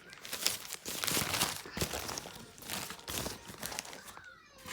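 Paper burger wrapper crinkling and rustling in irregular crackly bursts as a Burger King Impossible Whopper is handled.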